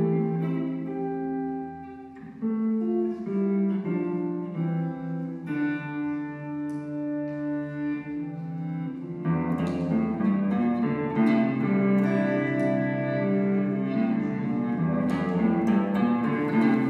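Instrumental background music of held notes changing about once a second, growing fuller and louder about nine seconds in.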